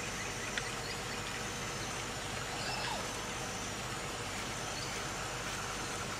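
Steady outdoor background noise: an even hiss with a low hum underneath, and a faint click about half a second in.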